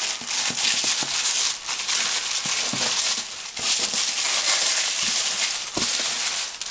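A plastic mailing bag being torn open and tissue paper pulled back by hand: continuous crinkling and rustling, with a few soft knocks, the clearest near the end.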